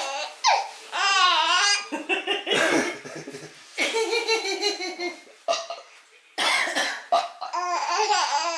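A man belching repeatedly, each belch followed by a five-month-old baby's high-pitched, bouncing bursts of laughter.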